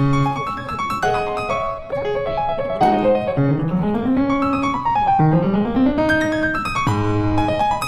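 Background music led by piano, with notes that glide up and down in pitch in the lower part of the middle.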